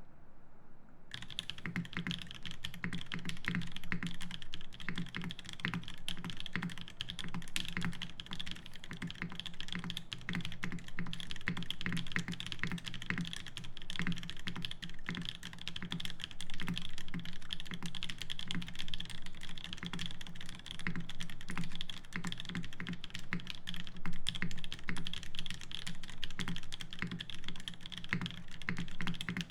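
Fast, continuous typing on a Jubi mechanical keyboard with lubed Naevy switches, an aluminium plate and GMK Rudy keycaps: a dense, even stream of keystrokes starting about a second in.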